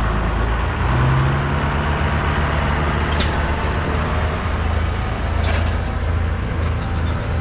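Engine of a heavy vehicle running steadily, with a low hum and a few faint clicks.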